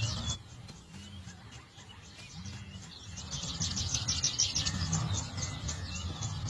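Small birds chirping in quick runs of high notes, loudest about three to five seconds in.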